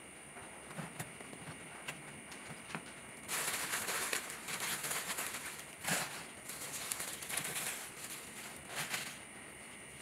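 Leaves rustling and crackling as a hand gathers a pile of them and shifts it across soil, starting about three seconds in after a few light clicks. A steady high insect trill runs underneath.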